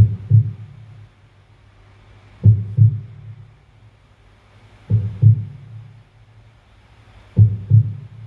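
Slow, deep double thumps like a heartbeat, four pairs about two and a half seconds apart, over a faint low hum: the heartbeat-style ending of a song's backing track.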